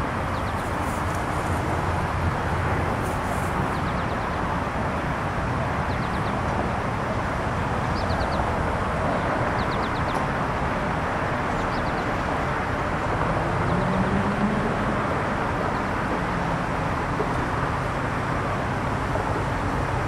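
Steady outdoor rumble of distant traffic and machinery, with an engine note rising briefly about two-thirds of the way in and a few faint high chirps.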